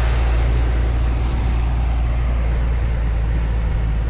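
Diesel engine of a large New Holland tractor running steadily at close range as the tractor drives off across the field, a strong low drone.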